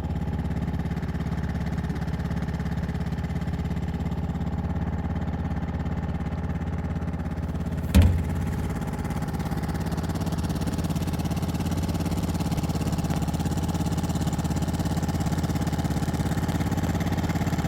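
Air-cooled outboard motor running at a steady speed with the boat under way, with a single thump about eight seconds in.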